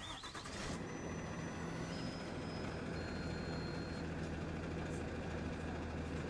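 Bus engine idling steadily, a low even hum that comes up under a second in.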